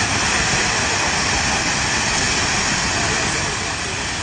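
Rockslide down a steep mountainside, shaken loose by an earthquake: a loud, steady rush of noise from falling rock and debris, easing slightly near the end.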